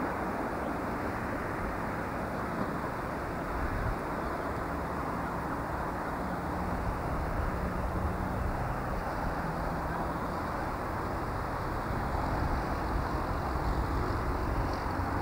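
Met-Cam Class 101 diesel multiple unit running on its underfloor diesel engines as it draws away, a steady low rumble.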